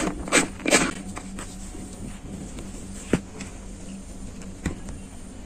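A lid being fitted onto a glass jar: a couple of sharp clicks within the first second, then a few faint taps as the closed jar is handled.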